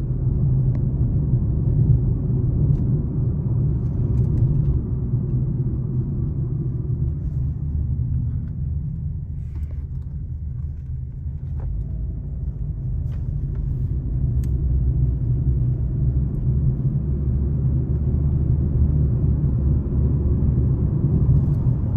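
2018 Honda Civic driving, its engine and road noise making a steady low rumble that eases off about halfway through and then builds again. No whine or noise comes from the freshly rebuilt CVT, with its new drums, belt and shaft bearings.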